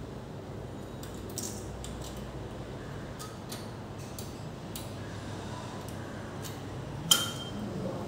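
Light metallic clicks and clinks of metal tools and parts being handled during brake pad work, with one sharp metal clink that rings briefly about seven seconds in.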